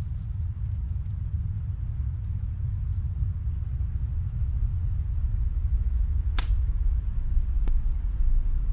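Log fire crackling in a fireplace: sparse small pops over a steady low rumble, with one sharp louder crack a little past six seconds in.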